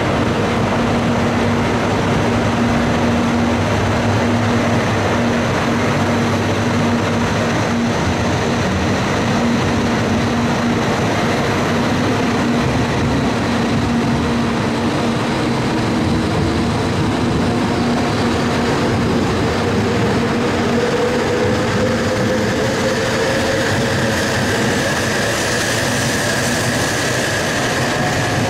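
E956 ALFA-X Shinkansen test train pulling away from a platform: a steady electric hum at first, then traction-motor whines that climb steadily in pitch from about ten seconds in as the train gathers speed, over the noise of the cars rolling past.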